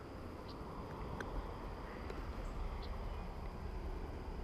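Riverside ambience: a steady high insect drone, a low rumble that swells about a second in, and a few faint light clicks.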